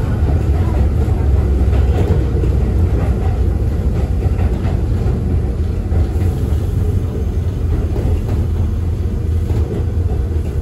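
Electric train running, heard from inside the passenger car: a steady low rumble of wheels on rail with occasional faint clicks.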